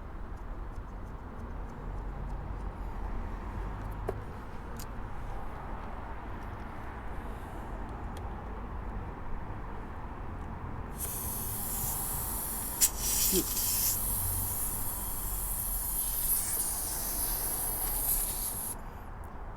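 Air hissing out of a tyre valve as the tyre is let down. The hiss starts about halfway through, carries on steadily for about eight seconds and stops sharply, with a sharp click shortly after it starts.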